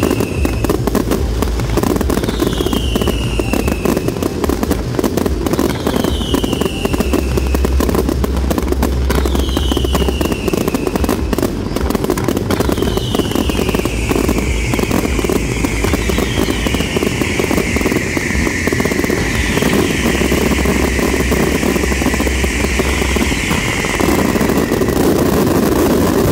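Display fireworks going off in a dense, continuous barrage of bangs and crackling with deep booms. Whistles that fall in pitch come about every three seconds at first, then from about halfway many whistles overlap at once.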